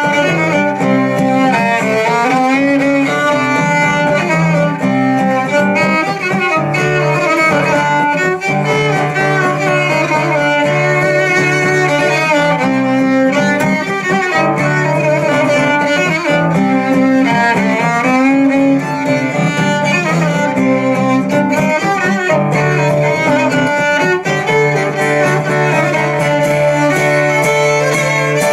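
Fiddle and acoustic guitar playing an instrumental tune together: the fiddle bows the melody over strummed guitar chords.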